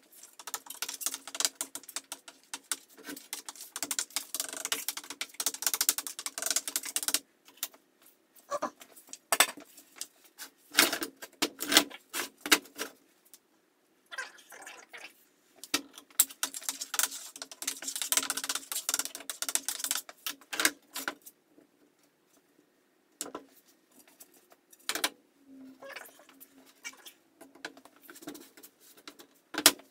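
Scraping and rustling of wood glue being spread across plywood boards with a card. Between the spreading come clicks and knocks of the boards and the glue bottle being handled and set down, in several bursts separated by silent gaps.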